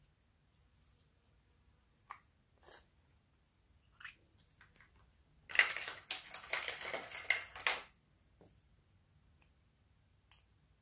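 Hard plastic paint pot handled, with about two seconds of rapid clicking and crackling from about halfway through. A few faint clicks come before it.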